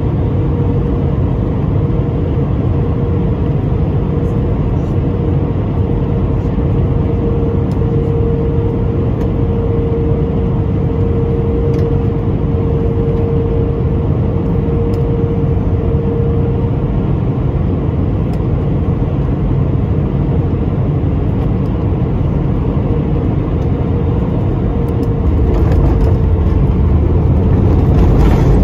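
Cabin noise of an Airbus A319 on final approach: steady jet engine and airflow noise with a steady hum that fades out about two-thirds of the way through. Near the end the noise grows louder and deeper as the airliner touches down and rolls along the runway.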